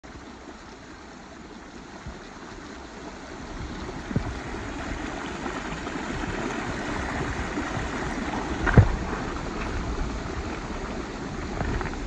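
Shallow rocky stream rushing and gurgling over stones, growing louder about four to six seconds in. Two brief knocks, the louder one near the end.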